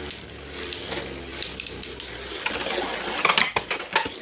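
Two spinning Beyblade Burst tops whirring against each other, with scattered sharp clacks of collisions that come thick and fast from about three seconds in.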